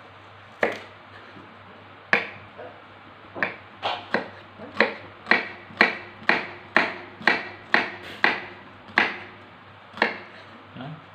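Kitchen knife dicing an onion on a wooden cutting board: sharp chopping taps, two slow ones and then a quicker run of about two a second, stopping shortly before the end.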